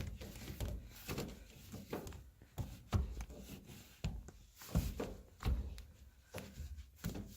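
Irregular soft knocks and scuffing as a Norwex Envirowand is pushed down and worked around inside a clothes dryer's lint-screen slot.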